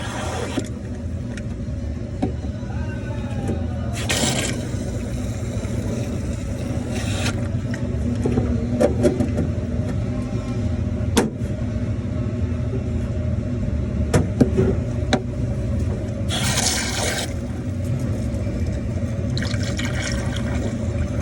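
Steady low hum of a running refrigeration unit. Four short hissing gushes of about a second each break over it, along with a few light clicks.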